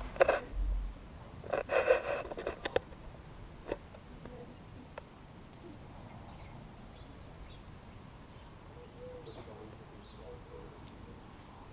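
Footsteps and rustling through overgrown garden undergrowth in the first three seconds, then quiet outdoor ambience with a few faint bird chirps.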